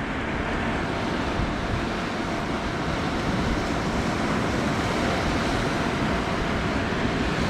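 Small blower running steadily on its third speed setting to fan a campfire: an even rushing of air with a faint steady whine.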